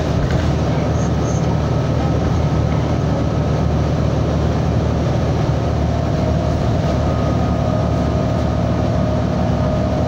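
City transit bus driving along, heard from inside the passenger cabin: a steady low rumble of engine and road noise with a faint whine.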